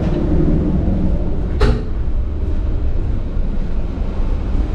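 Steady low rumble of the ship's machinery and ventilation, with one sharp click about one and a half seconds in, a door latching shut.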